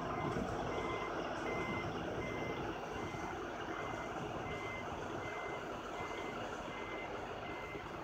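Brandt road-rail truck's backup alarm beeping steadily, about three beeps every two seconds, over a steady rumble of the truck and its train, fading slightly as it backs away.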